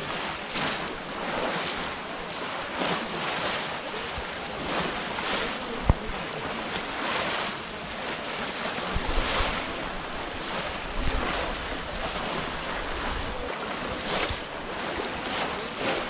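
Shallow water splashing and sloshing as many people wade through it and plunge bamboo polo fish traps in, in a stream of uneven splashes, with wind buffeting the microphone at times and one sharp knock about six seconds in.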